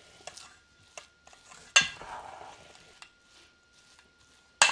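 Spoon stirring a thick, crumbly stuffing in a stainless steel bowl, with soft scraping and a few sharp clinks against the bowl: the loudest about two seconds in and another near the end.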